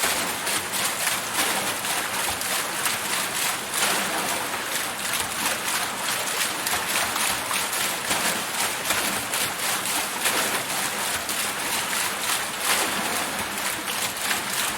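Water wheel turning, its paddles splashing and water pouring off them in a steady rush, with many small splashes and no pauses.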